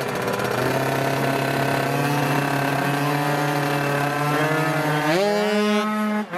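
Two racing scooter engines held at steady high revs on a drag-strip start line, then launching about five seconds in, the engine pitch climbing sharply as they accelerate away. The sound briefly drops out just before the end.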